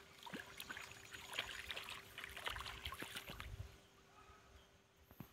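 Faint light splashing and gurgling with many small irregular clicks as a topwater frog lure is worked across a calm river surface, dying down after about four seconds.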